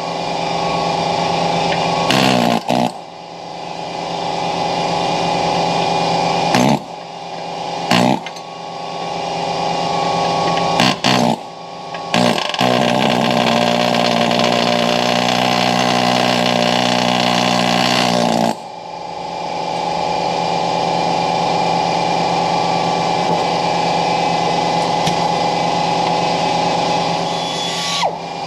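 A small rotary grinder with an abrasive cut-off disc running in bursts on a rusted exhaust joint. It stops briefly several times in the first twelve seconds and winds back up each time. For about six seconds in the middle its pitch drops and wavers as the disc bears into the metal, then it runs steadily again.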